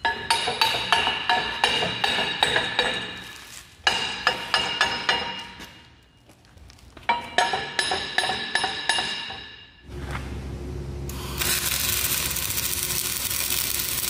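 Steel plate struck again and again in three quick runs of ringing metal clanks. Near the end comes the steady crackling hiss of arc welding.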